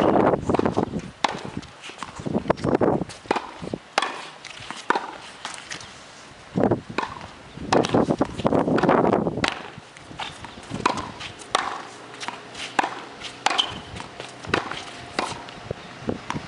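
Tennis ball struck by rackets and bouncing on a hard court in a volleying rally, a long run of sharp irregular pops, with louder rushing noise near the start and again about eight seconds in.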